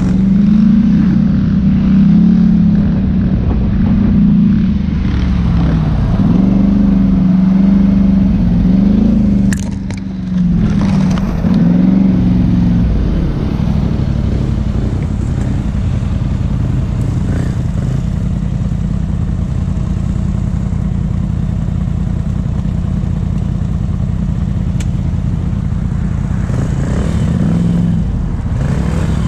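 ATV engine running under a rider on a rough trail. It revs up and down repeatedly for the first dozen seconds, then settles to steady running, with a few throttle swells again near the end.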